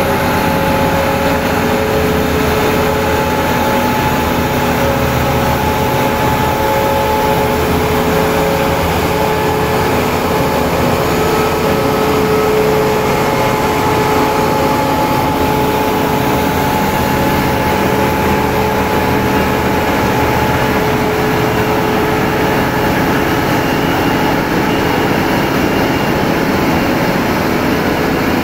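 Heavy multi-axle modular transporter hauling a large tank, its engine running steadily under load. Over the low rumble there is a steady whine.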